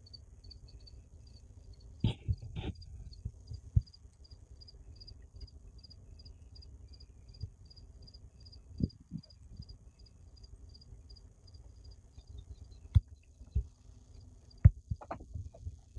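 A cricket chirping steadily at about three high chirps a second, stopping about two-thirds of the way through, over a low rumble of wind on the microphone. A few sharp knocks stand out, two clusters near the start and the end.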